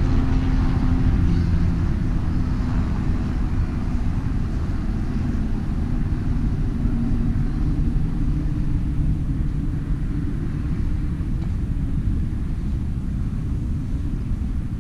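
Steady low vehicle rumble with faint engine tones underneath, like a car on the move.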